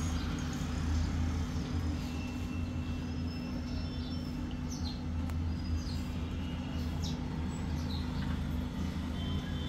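A steady low mechanical hum, with a few faint high chirps now and then.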